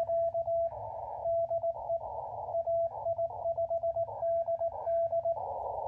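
Morse code (CW) signal coming through a ham radio transceiver's speaker: a single mid-pitched tone keyed on and off in short and long elements, with band noise hissing up in the gaps between them.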